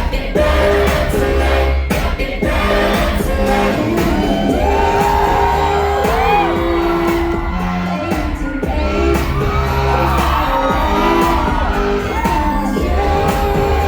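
K-pop song played loud over a concert sound system: a female voice singing held, gliding notes over a heavy, repeating bass beat, with audience shouts mixed in.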